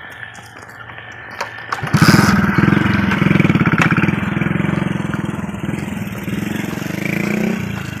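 A small engine running loud and steady, coming in about two seconds in, with a brief rise in pitch near the end before dropping back.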